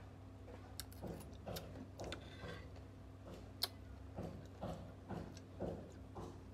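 Metal spoon clinking and scraping against a ceramic bowl: several sharp clinks in the first two seconds and one louder clink about three and a half seconds in, with soft chewing between them over a steady low hum.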